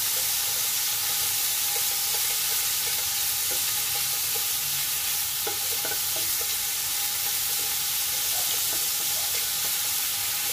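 Chicken, onion and tomato sizzling in a hot frying pan: a steady frying hiss, with light scrapes of a wooden spatula stirring them.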